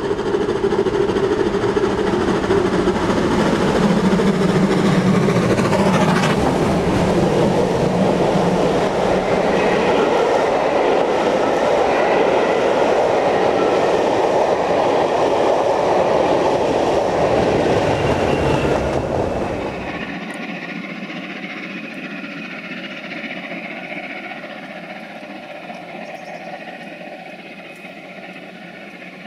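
Steam locomotive 45596 Bahamas, a three-cylinder LMS Jubilee 4-6-0, working a passenger train past at speed, followed by its coaches rolling by with wheel clickety-clack. About two-thirds through the sound drops abruptly to a quieter, steady running that fades as the train's rear Class 20 diesel draws away.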